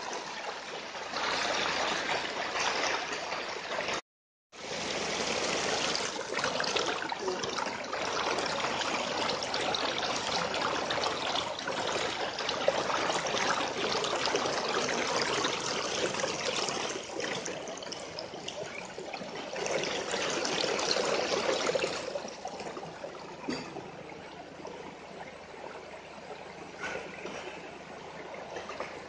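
Shallow rocky river running over stones, a steady noise of flowing water. The sound cuts out for about half a second around four seconds in, and is quieter for the last several seconds.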